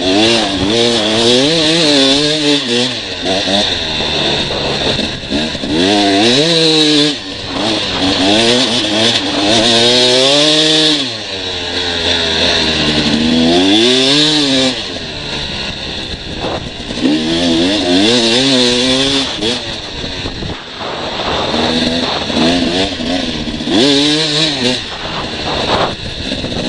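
Motorcycle engine revving up and falling back again and again, its pitch wavering quickly as it runs, over a steady hiss.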